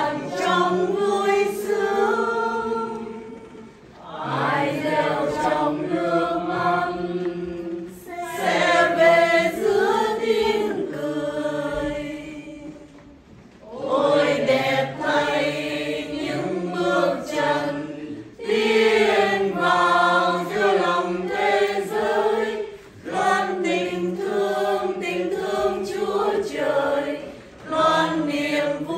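A congregation sings a communion hymn in Vietnamese in unison, in long phrases with brief pauses between them. The longest pause falls about thirteen seconds in.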